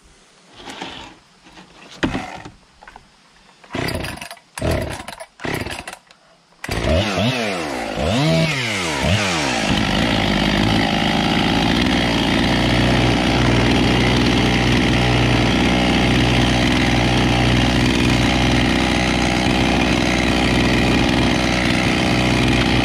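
Husqvarna 257 two-stroke chainsaw pull-started with several tugs on the recoil cord. It catches about seven seconds in, its pitch rising and falling, then settles into steady running while its freshly rebuilt carburettor is tuned with a screwdriver.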